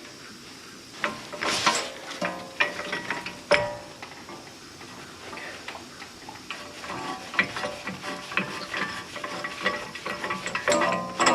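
Metal tool parts clinking and tapping as a hub-remover tool and its forcing screw are fitted against the hub and steering knuckle, in separate sharp clicks with a few louder knocks.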